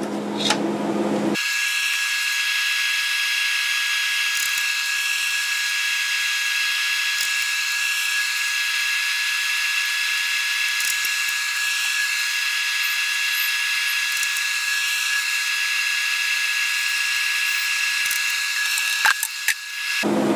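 Steady high-pitched electric whine made of several held tones over a hiss, with a few faint ticks. It starts abruptly about a second in and cuts off just before the end: the brewing unit's hum sped up under fast-forwarded footage of the mash being stirred.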